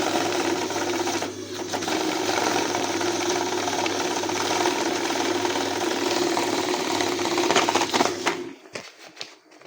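Banknote counting machine running, notes fluttering rapidly through it in a steady rattle that stops about eight and a half seconds in, followed by a few clicks.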